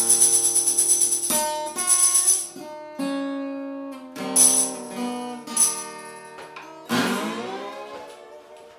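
Acoustic guitar playing blues with a tambourine shaken along in bursts. The tambourine stops after about six seconds, and a final strummed chord about seven seconds in rings out and fades away.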